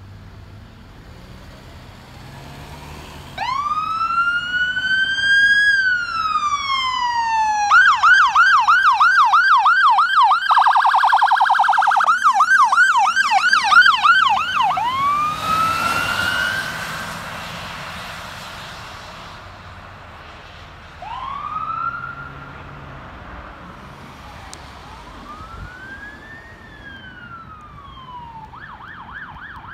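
Electronic siren on a pickup-based fire department utility truck towing a trailer, going past. It gives a slow rising and falling wail, then switches to a rapid yelp with a burst of very fast warble in the middle, and is loudest as the truck passes. It then fades back into slower wails, and near the end another siren starts a rapid yelp.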